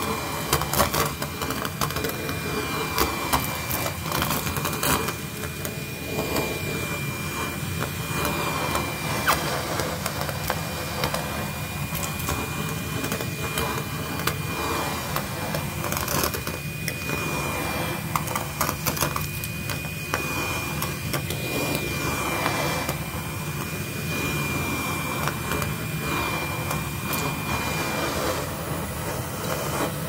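Henry cordless vacuum cleaner running steadily through its crevice tool, a constant rush of air with a thin high motor whine over it. Scattered clicks and rattles as foil confetti is sucked up the tube.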